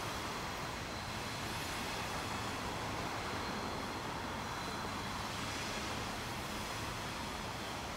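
Freight train cars rolling steadily across a steel girder bridge: an even rush of wheel noise, with a faint high whine above it.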